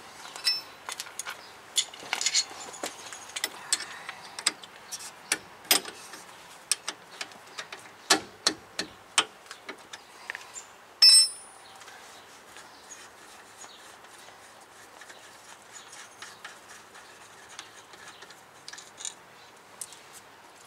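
Metal tools and parts being handled and set down: a string of light clinks and knocks, with one loud clank that rings briefly about eleven seconds in.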